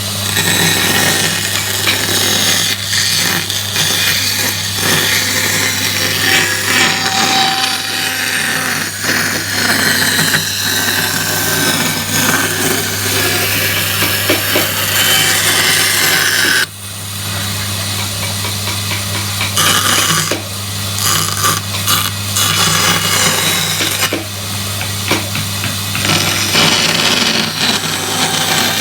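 Woodworking power tools cutting and shaping wood: a motor running steadily under rough cutting and rubbing noise, with sudden changes about two-thirds of the way through where clips are joined.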